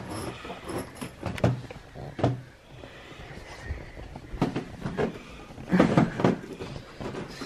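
Irregular knocks and thumps of a heavy wheeled suitcase being hauled up a flight of stairs, with a cluster of heavier bumps about six seconds in.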